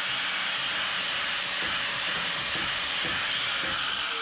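Angle grinder with a cut-off wheel cutting 1/8-inch steel plate: a steady high hiss of the cut over the motor's steady whine. Near the end the whine starts to fall in pitch as the grinder winds down.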